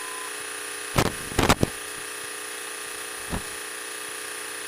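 Steady drone of the Cessna's engine heard through the cockpit intercom, cut off in the lows. A few sharp clicks come about a second in and a soft thump near the middle.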